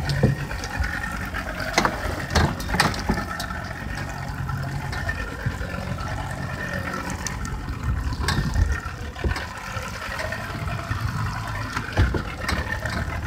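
A boat's engine idling under a steady rush of wind and water, with a few sharp knocks about two seconds in, again just after, and near the end.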